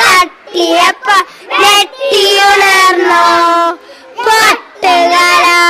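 Young boys singing a children's song into a handheld microphone: short sung phrases with a long held note in the middle, broken by quick breaths.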